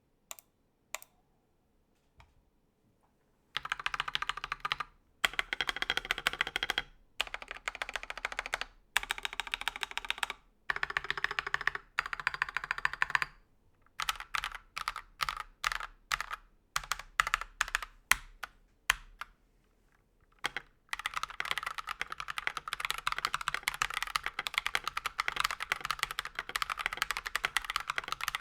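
Typing on an Akko 3098 mechanical keyboard with its stock Akko Rose Red linear switches and ASA-profile keycaps. A few separate key presses come first, then bursts of fast typing broken by short pauses, slower single keystrokes around the middle, and steady fast typing through the last third.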